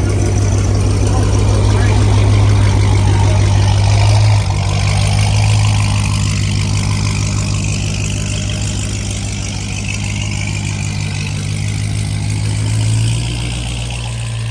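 Dodge Charger Hellcat's supercharged 6.2-litre Hemi V8 idling through a catless, mid-muffler-delete exhaust with a loud, steady low note. The idle shifts slightly about four seconds in and again near the end.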